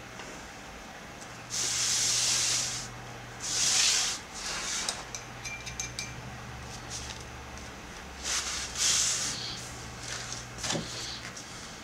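A large sheet of paper sliding and rustling across the table as it is moved, in four short sweeps, the loudest about two and four seconds in. Light ticks come between the sweeps, over a steady low hum.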